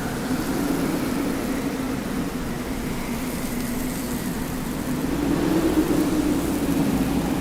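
Desert wind blowing steadily: a rushing hiss with a low droning tone underneath, swelling a little louder and slightly higher about two-thirds of the way through.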